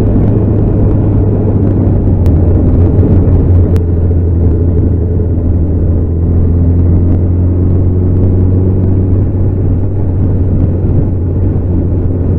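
Motorcycle running steadily at cruising speed: a loud, even low drone with faint engine tones holding a level pitch, no revving or gear changes.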